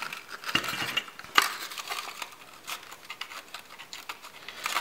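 Laser-cut wooden box parts clicking, knocking and rubbing as the wooden skin is wrapped round the box and its tight tabs are worked into their slots: a run of light, irregular clicks, the sharpest a little over a second in.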